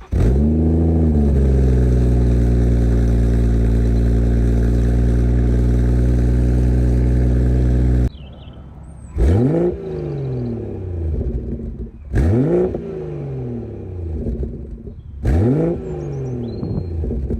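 BMW M240i's B58 3.0-litre turbocharged straight-six breathing through an M Performance rear silencer: a cold start whose revs flare up and fall back, then a steady fast idle that stops abruptly about eight seconds in. After that it idles lower with three quick throttle blips about three seconds apart, each climbing sharply and dropping back.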